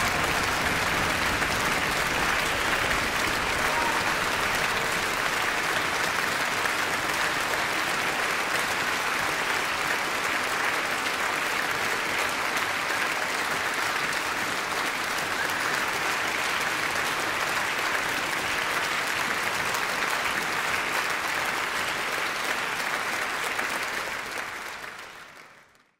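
Concert-hall audience applauding steadily after the performance, fading out near the end.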